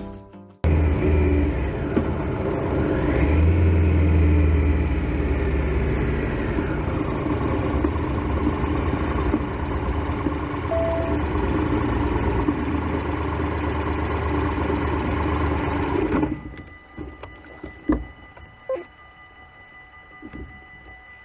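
Triumph Tiger Explorer XRx motorcycle's three-cylinder engine running as the bike rides up to the crossing, rising and falling in pitch in the first few seconds, then cutting out about three-quarters of the way through. After that, level-crossing warning bells ring steadily, with a few knocks.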